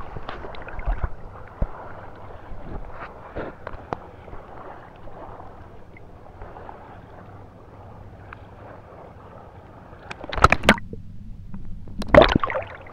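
Sea water sloshing and splashing against a camera held at the surface, with many small splashes. Two louder splashes come about ten and twelve seconds in as the camera dips under, and between them the sound goes dull and muffled under water.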